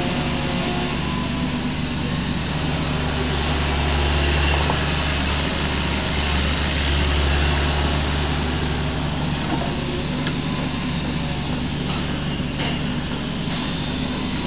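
Kubota KX61-3 mini excavator's diesel engine running steadily under digging load, working a little harder for a few seconds in the middle as the arm swings and dumps spoil. A couple of faint knocks come near the end.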